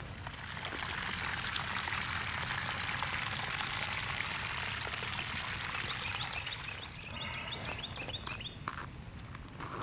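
Running water, a steady rushing that eases off after about six seconds; the ground is running with rainwater after heavy thunderstorms.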